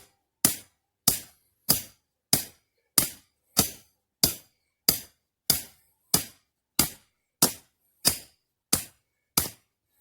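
Hammer blows driving the anchor of a dog-proof raccoon trap into hard ground: about fifteen sharp strikes at a steady pace of roughly three every two seconds.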